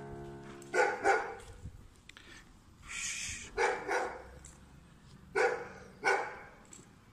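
A dog barking: three double barks, the pairs about two seconds apart, with a short hiss between the first and second pair.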